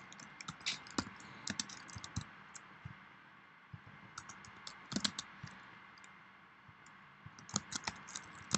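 Typing on a computer keyboard: runs of quick keystroke clicks, with a flurry at the start, a few about five seconds in and another flurry near the end, and short pauses in between.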